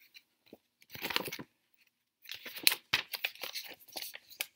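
Paper pages of a thin paperback picture book being turned and handled, rustling and crinkling: a short crackle about a second in, then a longer stretch of crinkling.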